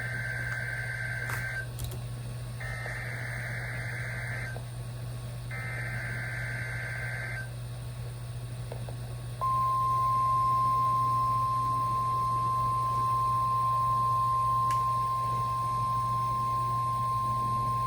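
NOAA Weather Radio alert signal from a Midland WR120 weather radio's speaker: three SAME header bursts of warbling data tones, each about two seconds long with short gaps between, then, after about two seconds, the long steady single-pitch warning alarm tone. It is the Required Weekly Test of the specific area message encoding and tone alert systems. A steady low hum runs underneath.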